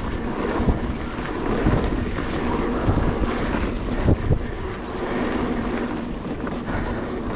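Mountain bike rolling down a dirt singletrack: steady tyre rumble on the dirt with wind buffeting the microphone, and a few knocks from the bike over bumps, two close together about four seconds in.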